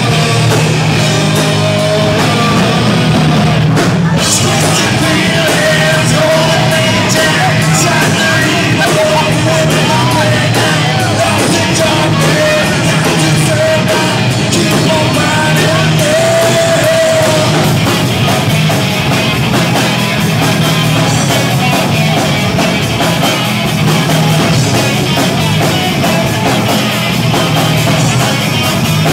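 Live rock band playing loud and dense: drums, bass and electric guitar, with a singer.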